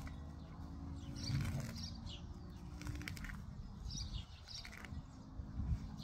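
Tall grass and weeds being pulled up by gloved hands, rustling and tearing in short strokes, with small birds chirping now and then.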